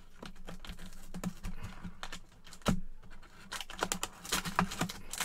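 Cardboard trading-card hobby box being handled by gloved hands as its lid and flaps are opened: a run of light clicks and taps, with one sharper knock about two and a half seconds in.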